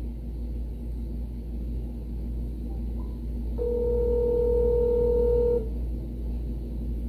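Ringback tone of an outgoing call on a smartphone, heard through the phone's speaker: one steady ring about two seconds long in the middle, over a low steady hum.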